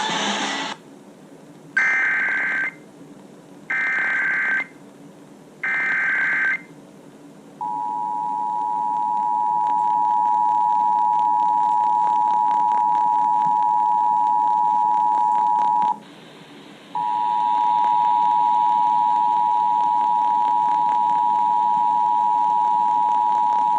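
Emergency Alert System tones: three short buzzing bursts of SAME header data, about a second each and a second apart. Then comes a long steady attention tone near 1 kHz, which breaks off for about a second and starts again. Together they signal an incoming severe weather warning.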